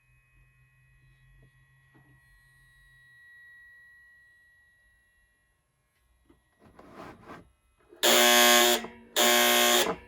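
Tip-over safety buzzer of a Presto HeatDish Plus space heater, set off by lifting the heater. It sounds two loud buzzing blasts of just under a second each, about half a second apart, near the end.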